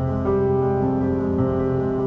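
Background music played on piano, with held chords that change about once a second.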